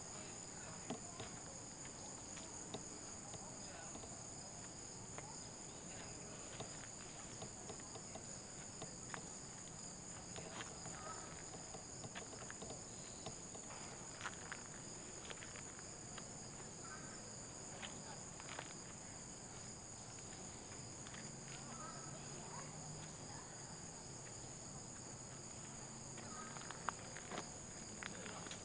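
A steady, high chorus of insects, with irregular footsteps and small crunches on a dirt trail strewn with leaves and twigs.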